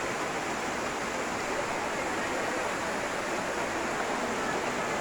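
Waterfall rushing steadily, an even hiss of falling water with no change in level.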